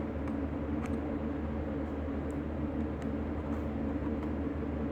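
Steady low hum with a hiss underneath, and a few faint clicks from a small plastic part being handled and screwed onto the camcorder.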